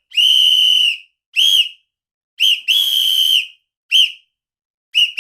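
A high-pitched whistle blown in a series of separate blasts, long and short: a long blast first, then a short one, a quick blip running into a second long blast, and two more short blasts near the end.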